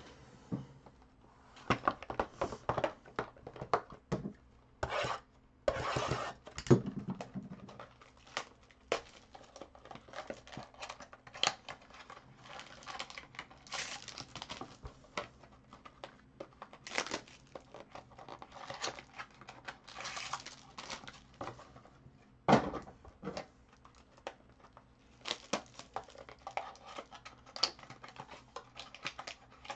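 Trading-card boxes and foil-wrapped packs being handled and unpacked: irregular crinkling and tearing of foil wrap, with taps and knocks of cardboard boxes on the table.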